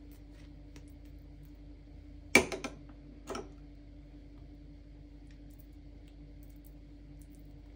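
A metal teaspoon clinks sharply against a glass jam jar a little over two seconds in, with a couple of quick rattling follow-up clinks, then one softer clink about a second later, over a faint steady hum.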